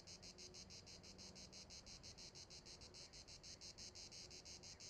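Cricket chirping steadily in a fast, even rhythm of about seven chirps a second, faint and high-pitched.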